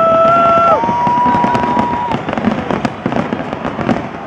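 Fireworks display crackling and banging in quick succession. Over it, in the first two seconds, two long held notes sound, the second higher, loudest at the very start.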